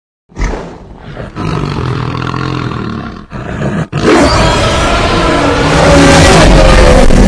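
Giant-monster roar sound effect in the style of Godzilla: a roar beginning with a sudden hit, then a second, louder roar from about four seconds in.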